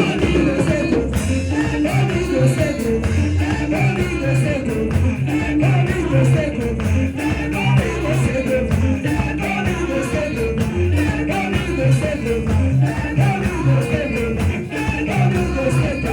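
Music with a steady beat and bass line, guitar and singing, playing continuously.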